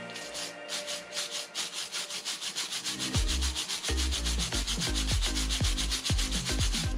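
Wire brush scrubbing a steel brake caliper bracket in fast, even back-and-forth strokes, several a second, cleaning it before the pads and sliding shims go back in.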